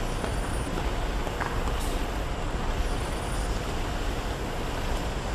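Ship's engine-room machinery running: a steady, deep rumble with a constant hiss over it.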